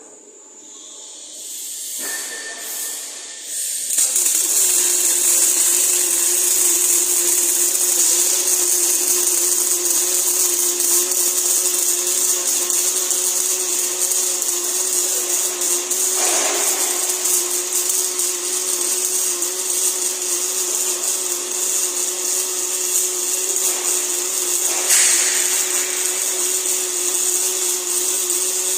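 Welding on a pipe elbow and flange: a steady arc hiss over a constant machine hum, building up over the first few seconds and holding steady from about four seconds in, with two brief swells later on.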